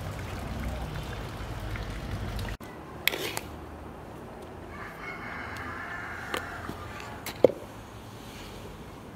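A rooster crowing once, one long call in the middle, with a few sharp taps before and after it, the loudest near the end.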